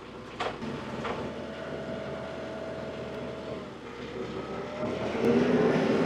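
A portable bandsaw sawmill's gasoline engine running steadily, with two sharp knocks in the first second or so. About five seconds in, the engine rises in pitch and gets louder, as if throttled up or taking load.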